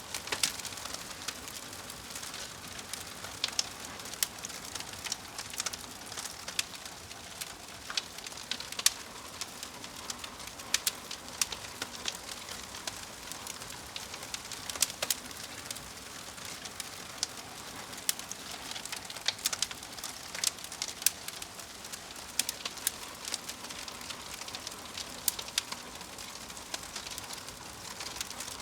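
Wood fire crackling: a steady hiss of burning with frequent, irregular sharp pops and snaps, a few louder than the rest.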